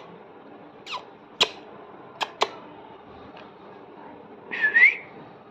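Pet parrot making a few sharp clicks, then a short rising whistle near the end.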